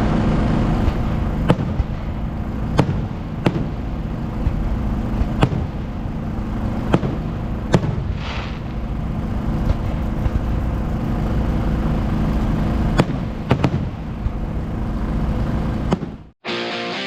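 Drag-racing engine idling with a steady low rumble, broken by sharp pops and cracks every second or so.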